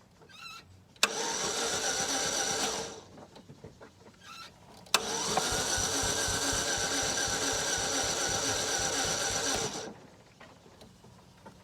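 A 2003 Pontiac Sunfire's 2.2 L Ecotec four-cylinder being cranked by its starter on jump-starter power, in two tries: a click and about two seconds of cranking, then a second click and about five seconds of cranking. Neither try catches: each stops abruptly with the engine failing to start.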